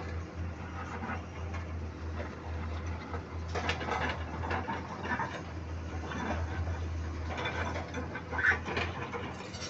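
Komatsu PC210 LC tracked excavator at work: its diesel engine runs steadily under irregular clattering and scraping as the bucket drags through soil and rock. The clatter grows busier about halfway through and is loudest near the end.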